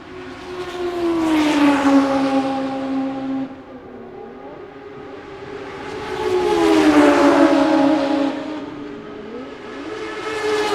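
Fast cars passing one after another, each engine note swelling, dropping in pitch as it goes by, and fading. There are two full passes, the first cut off sharply, and a third begins at the very end.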